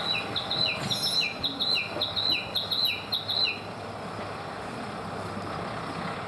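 A bird chirping quickly, about three short calls a second, for the first three and a half seconds. Under it runs the steady hum of idling diesel railcars.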